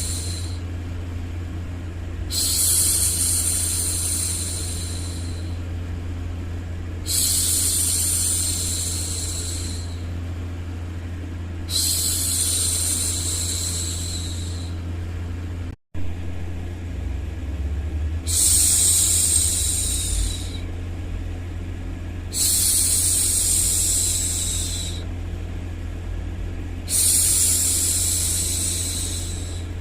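A woman's long, soft 'shhh' hushing sounds repeated about every four to five seconds, each lasting two to three seconds, over a continuous low rumble of background white noise. The sound cuts out for an instant about halfway through.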